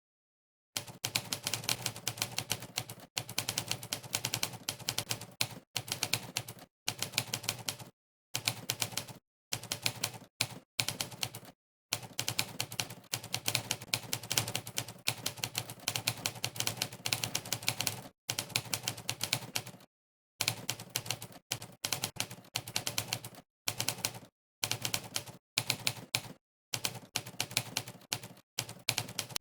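Monkeytype's typewriter key sound effect: one typewriter clack per keystroke, in fast runs of typing broken by short silent pauses. It starts about a second in.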